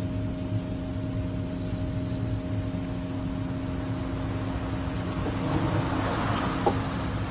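A steady low machine hum with a constant drone, and a short scratchy noise with a sharp tick near the end.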